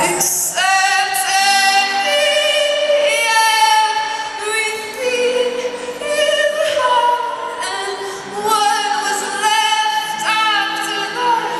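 A female lead singer sings live into a microphone in long, held phrases that slide between pitches, over sustained backing chords.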